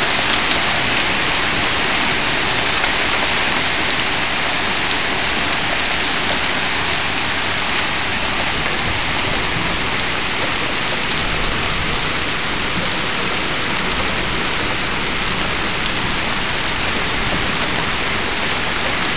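Steady heavy downpour from a hailstorm, with water running over an edge.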